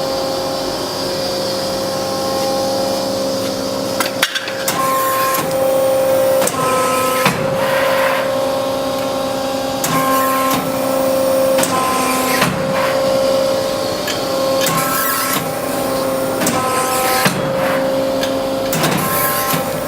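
Hydraulic press brake running: its pump whines steadily, and after about four seconds the whine starts stepping up and down in pitch in a quick repeating pattern every second or two as the ram and back gauge cycle through their moves.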